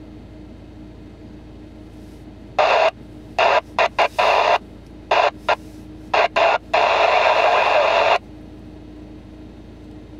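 Yaesu FTM-350 FM transceiver tuned to the ISS downlink on 145.800 MHz, its squelch opening and closing on about ten short bursts of static, the last and longest about a second and a half. This is the weak signal of the International Space Station beginning to break through as the station comes into range.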